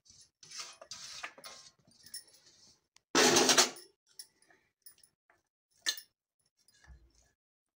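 Handling noises on a steel plate as boiled noodles are spread out: a soft rustle, a louder scraping clatter about three seconds in, then a few light metal clicks and a dull thump near the end.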